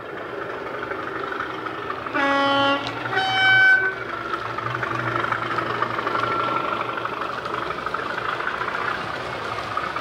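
Diesel locomotive sound from a model train's DCC sound decoder, played through an EM2 speaker: a two-tone horn sounds about two seconds in, a low note then a higher one, followed by the diesel engine running as the locomotive passes.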